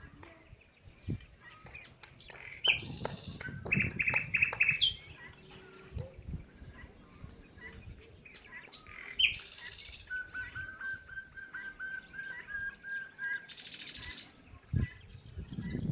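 Small songbirds chirping and calling, with several short harsh calls and a fast run of repeated, evenly spaced notes for a few seconds about ten seconds in.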